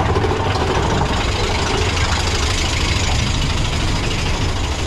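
Mine-train roller coaster running along its track, heard from the front car: a loud, steady rumble of wheels on rails.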